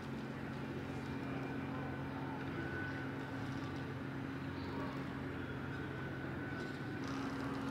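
Steady low machine hum made of a few unchanging low tones, like an idling engine or generator running.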